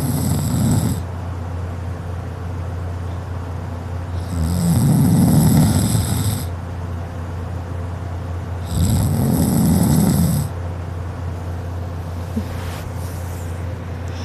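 A sleeping young woman snoring loudly: three long snores, one at the start and then one about every four to five seconds, over a steady low hum.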